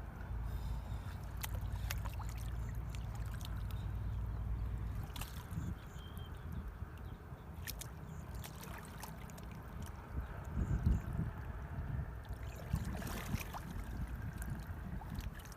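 Shallow water sloshing and trickling, with scattered clicks and a few louder splashes about two thirds of the way through. A low rumble sits under the first few seconds.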